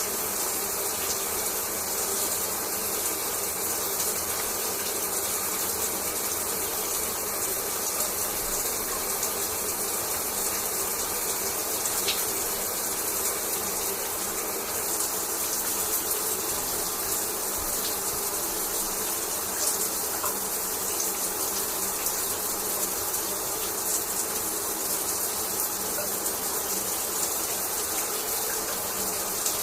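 Shower water spraying steadily onto a hard surface, an even hiss with faint scattered ticks of droplets.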